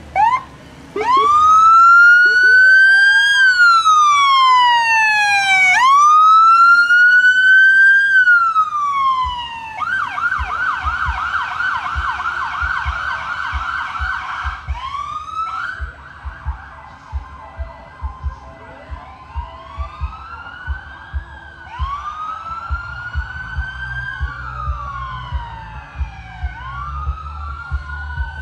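Electronic vehicle siren: two short blips, then a slow rising and falling wail. About ten seconds in it switches to a fast yelp for about five seconds, then goes back to wailing. Low regular thuds run underneath from about ten seconds in.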